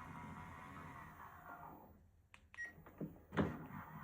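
The small electric motor of a Kohler smart toilet's powered seat whines steadily for about two seconds as it raises the seat. It is followed by a few light clicks and a louder knock about three seconds in.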